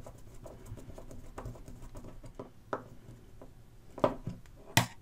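Faint scraping and small clicks of a screwdriver turning a screw to draw a tight new rubber mounting grommet through its hole in a capacitor's metal frame. Two sharper clicks come about four seconds in and just before the end.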